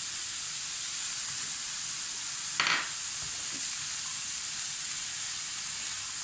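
Chana dal and grated cauliflower sizzling steadily in a frying pan while chopped tomatoes are stirred in with a wooden spoon, with one sharp knock about two and a half seconds in.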